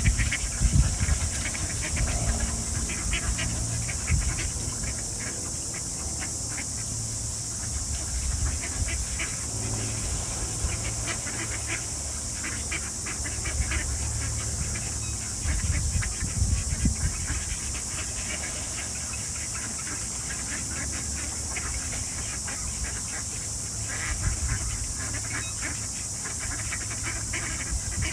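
A flock of Canada geese and ducks calling, with scattered honks and quacks throughout, over a steady high hiss.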